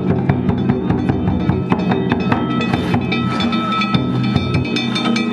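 Danjiri festival music: a taiko drum beaten with small hand-struck gongs (kane) clanging in a fast, steady rhythm, the gongs ringing over the drum.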